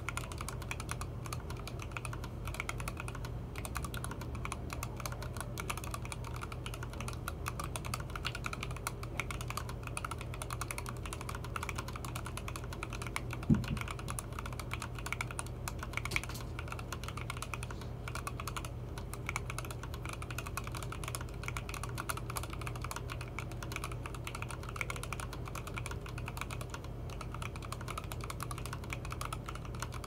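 Steady, rapid typing on a Monstargear Ninja87 ARC XD mechanical keyboard with a frosted acrylic case, fitted with lubed linear frankenswitches (TTC Gold V2 housings, Gateron Clear stems, 63.5 g slow-curve springs, Krytox 205g0) and Enjoypbt Sushi PBT keycaps. One keystroke about halfway through is much louder than the rest.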